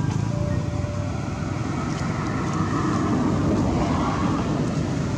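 Road traffic: a motor vehicle engine running close by, a steady low rumble that swells about halfway through as a vehicle passes.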